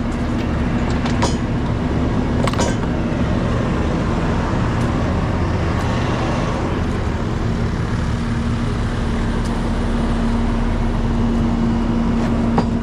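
Diesel engines idling steadily with a constant low hum, from the excavator and the rollback truck, with a few light knocks.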